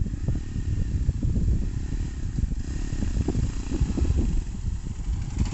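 Hero XPulse 200 motorcycle with an aftermarket Grease House performance exhaust, running with a heavy, uneven low rumble.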